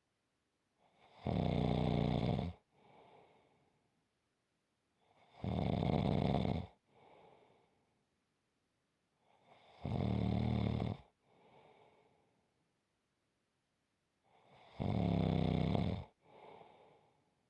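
Steady snoring: four loud snores about four seconds apart, each followed by a softer, shorter breath.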